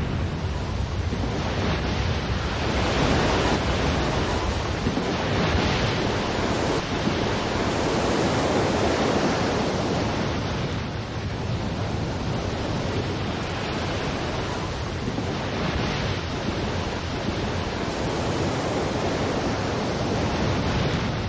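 Steady rush of surging seawater with wind, a tsunami wave and its flood, swelling and easing every few seconds.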